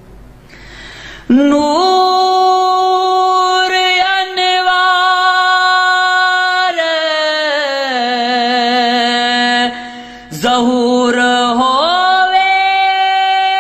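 A solo male voice singing a Punjabi Sufi kalam with no accompaniment, holding long, ornamented notes that slide between pitches, with a wavering passage in the middle. There is an audible breath about a second in and a brief break for breath near ten seconds.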